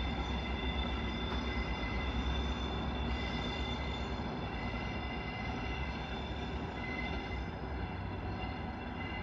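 Class 43 HST power cars hauling a test train past and drawing away: a deep engine rumble with a steady high-pitched whine over it, slowly fading.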